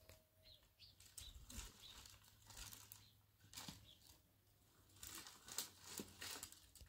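Faint, irregular rustling and crackling of dry brush and twigs being handled, a few crackles louder between about five and six seconds in.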